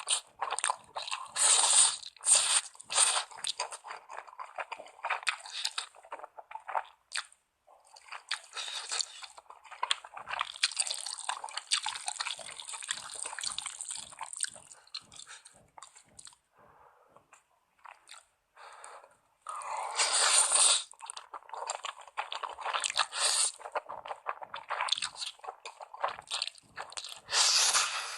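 Close-miked eating of instant ramen: noodles slurped in long noisy pulls, with wet chewing and smacking between them.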